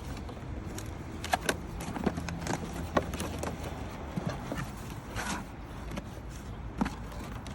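Irregular clicks and knocks from vacuum attachments and their packaging being handled, over a steady low rumble.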